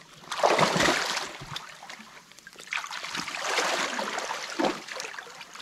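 Creek water splashing and trickling at a breached beaver dam, in uneven surges: one about half a second in, then a longer stretch from about three seconds.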